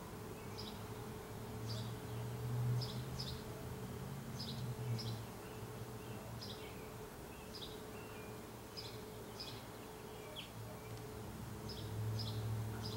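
A small bird chirping over and over: short, high, falling chirps, often in pairs. Beneath it a low hum swells about two seconds in and again near the end.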